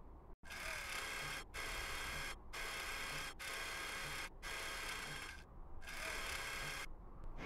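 Mechanical whirring sound effect for the animated Curiosity rover's moving parts. It comes in about six short runs of under a second each, separated by brief gaps, over a steady low hum.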